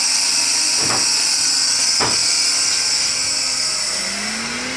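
Electric motor of a 2x72 shop disc grinder run from a variable-frequency drive (VFD), with a steady high hiss and two sharp clicks about a second apart. Near the end the motor's hum rises in pitch as the drive ramps it up to speed, restarting after being switched to reverse.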